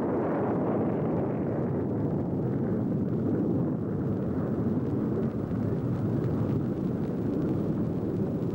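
Honest John solid-fuel rocket firing: the motor's loud, steady rushing noise, which does not fade.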